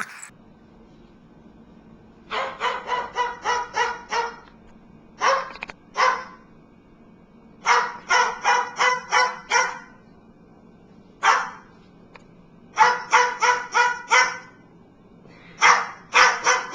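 A small dog yapping in quick runs of high-pitched barks, about four a second, with short pauses between the runs.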